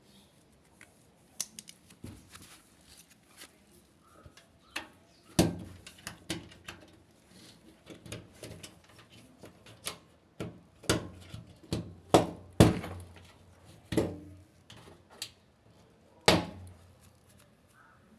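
A run of irregular knocks and clunks of hard objects being handled, about a dozen sharp ones spread unevenly, with the loudest in the middle stretch.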